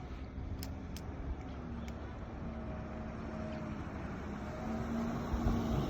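Steady low rumble of a running vehicle, with a faint droning hum that wavers slightly in pitch, growing louder near the end.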